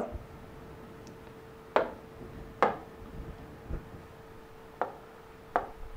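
About five sharp taps at irregular intervals on an interactive display screen, over a faint steady hum.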